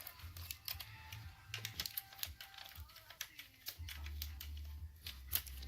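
Irregular metal clicks and clinks of hand tools and bolts as an alternator bracket is fastened, over faint background music.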